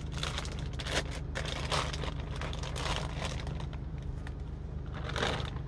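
Zip-top plastic bag crinkling as it is handled and pulled open, over the steady low hum of a generator.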